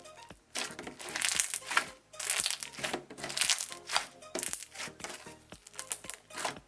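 Semi-foam slime with a glossy base being squished and stretched by hand, crackling and popping with trapped air bubbles in repeated bursts, over soft background music.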